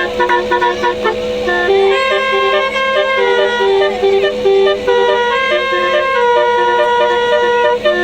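Basuri telolet horn on a truck playing a melody: several horn tones sounding together, stepping quickly from note to note with a few sliding notes between them.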